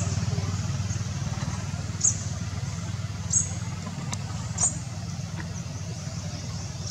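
A motor vehicle engine running steadily: a low, evenly pulsing rumble. Short high chirps cut in over it about every second and a half.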